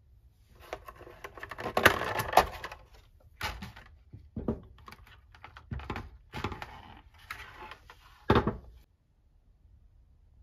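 Clear plastic blister packaging crackling and clicking as hand tools are pulled out of it, then a handful of separate knocks as the pliers, wire stripper and screwdriver are handled and set down on a wooden table, the last knock the loudest, near the end.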